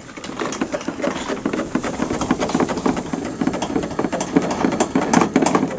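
Steel chain rattling and clinking in quick, irregular clicks as a quick link is screwed tight by hand onto a pickup bed's tie point.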